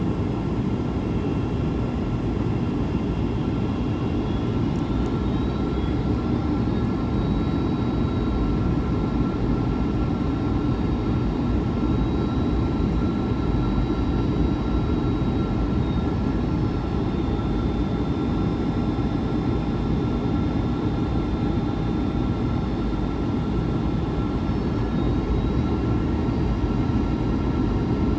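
Jet airliner cabin noise on approach: a steady, even rush of engine and airflow noise, low and dense, with a faint steady whine of engine tones above it.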